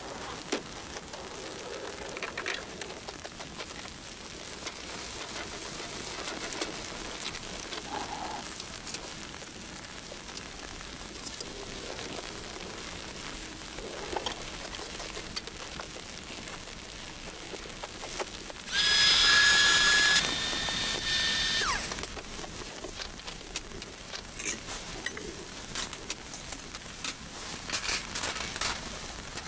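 Rain pattering steadily on a surface, with scattered small drop ticks. About two-thirds of the way in, a loud high steady tone with overtones sounds for about three seconds, then cuts off.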